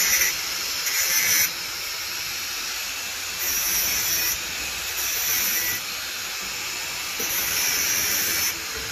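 Handheld electric angle grinder running against steel rebar. It gives a steady hiss-like whine, with about five spells of a sharper high-pitched grinding as the disc bites the bar.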